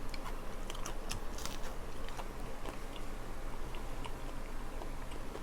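Close-miked chewing of a crispy fried chicken wing, with small crunches and clicks scattered throughout.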